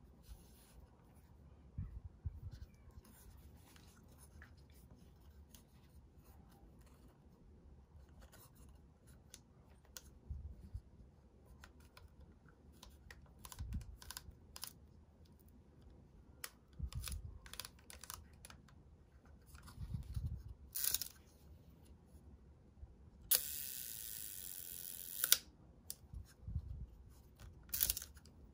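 Small clicks and knocks of a Linhof leaf shutter on a Carl Zeiss Sonnar 180mm f/4.8 lens as it is handled and its settings are moved. About three-quarters of the way in the shutter fires at a slow speed: a click, about two seconds of whirring from the escapement, then a sharper closing click. The seller notes that the slow speeds are a little sluggish.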